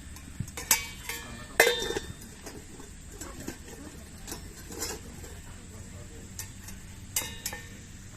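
Metal pieces clinking and knocking together as they are handled, a handful of sharp ringing clinks with the loudest about a second and a half in and a close pair near the end.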